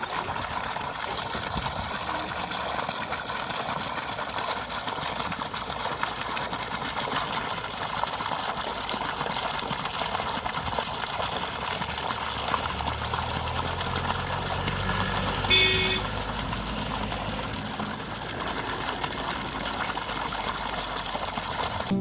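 Steady open-air background noise with a low engine rumble that builds and fades midway. A vehicle horn gives one short toot about fifteen seconds in.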